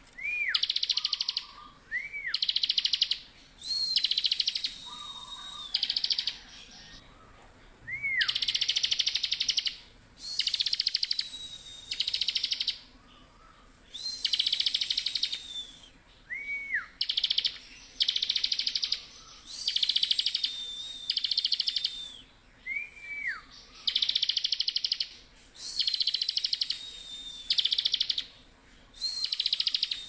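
Bar-winged prinia (ciblek) singing its rapid rattling 'ngebren' song. About one-second bursts of fast trilling come every second or two, between thin steady whistles and short notes that rise and then drop.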